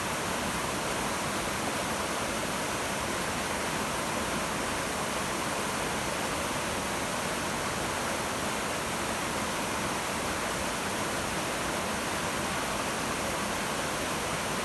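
Mountain creek cascades rushing: a steady, unbroken wash of falling and tumbling water with no changes.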